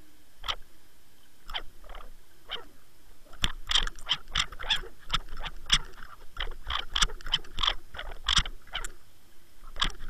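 Irregular sharp clicks and knocks heard through an underwater camera housing, sparse at first and then several a second from about three seconds in, with a faint steady high tone underneath.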